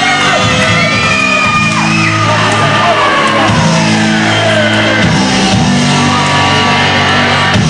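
Loud rock music played as the winner's theme, with shouting over it.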